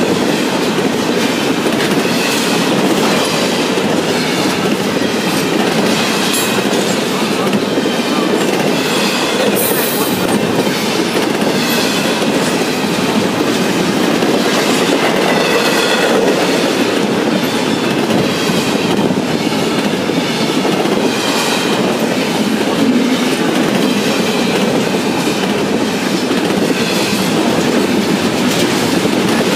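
CSX intermodal freight train passing at speed: a steady loud rush of wheels on rail, with a recurring clickety-clack as the wheels cross rail joints.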